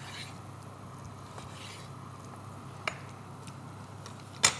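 Kitchen knife slicing through a raw chicken breast on a wooden cutting board: faint soft cutting strokes, a small click about three seconds in, and a sharp knock on the board near the end.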